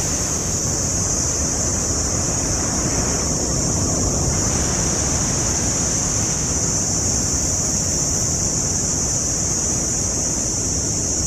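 A chorus of cicadas buzzing steadily at a high pitch, over a steady low rushing noise.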